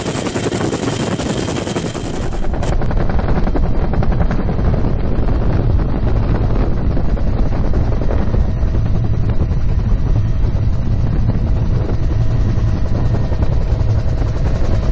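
UH-1 Huey helicopter heard from inside its open-door cabin in flight: the rapid beating of its two-bladed main rotor over the engine, with wind rushing past. About two and a half seconds in, the sound grows louder and loses its top end.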